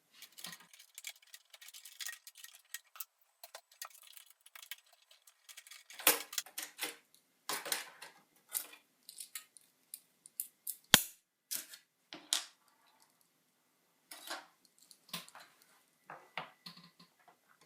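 Irregular small metal clicks, clinks and scrapes of an iMac G4's internal metal shield being worked loose and removed, with one sharp click about eleven seconds in.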